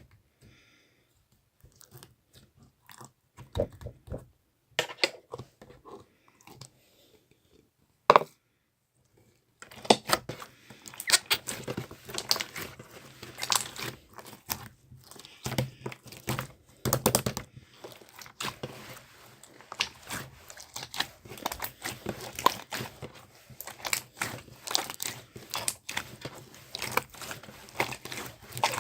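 Slime being handled, squished and pressed, giving wet crackling pops and clicks. It starts with a few scattered sounds, then becomes a dense, continuous crackle about a third of the way in.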